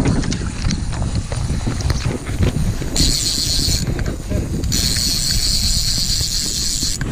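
Wind buffeting the microphone on an open boat, a dense low rumble throughout, with scattered clicks in the first couple of seconds. A high hiss switches on abruptly twice in the second half, first for under a second and then for about two seconds.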